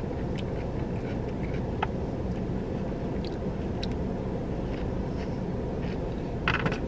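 Coleslaw being chewed, with small clicks of a plastic spoon in a plastic cup, over a steady low hum inside a car.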